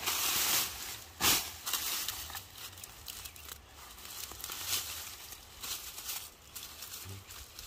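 Sweet potato vines and leaves rustling and tearing as they are pulled aside by hand, with hands scraping in the soil around the roots. There is a loud rustle at the start and a short sharp crackle about a second in, then scattered smaller rustles.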